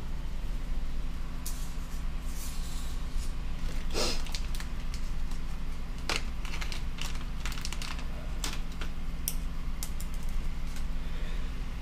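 Small clear plastic parts bag crinkling and rustling in the hands, with irregular sharp clicks of small parts being handled, the loudest crinkle about four seconds in; a steady low hum underneath.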